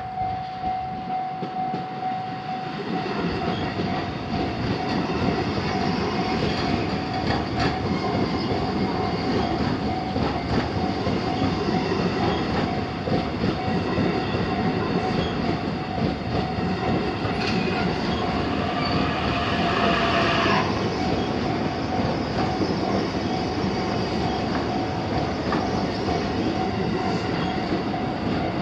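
A JR Joban Line train running through the level crossing: a steady rumble and clatter of the wheels on the rails that builds over the first few seconds. The crossing's warning bell keeps sounding faintly underneath. About two-thirds of the way through there is a brief squeal that rises in pitch and cuts off sharply.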